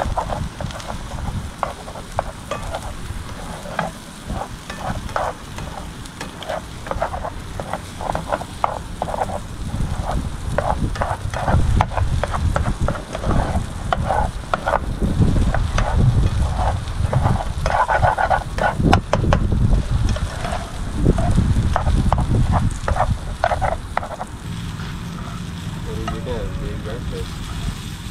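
A spatula stirring and scraping eggs and sausage in a frying pan, with the food sizzling: a long run of quick scrapes and taps that stops a few seconds before the end, over a low rumble.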